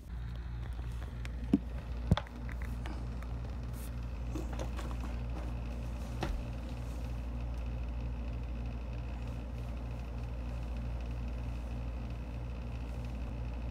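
Steady low hum with a faint regular pulse running through it. There are two sharp knocks about a second and a half and two seconds in, and soft rustling of blankets.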